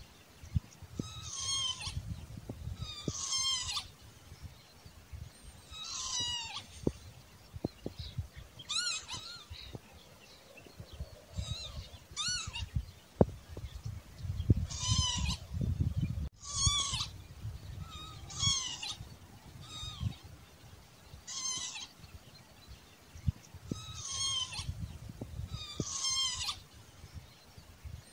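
Northern lapwing calling over and over, a mewing cry about once every one and a half to two seconds.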